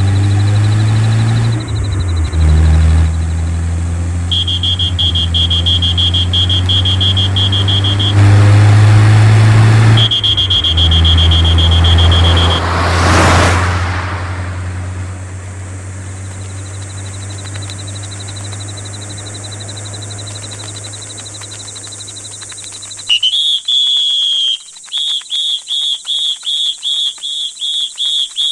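A car engine runs steadily and draws near, passing by with a loud rush about halfway through. Short runs of rapid high-pitched cartoon chirps sound twice early on, and from near the end a high chirp repeats about two to three times a second.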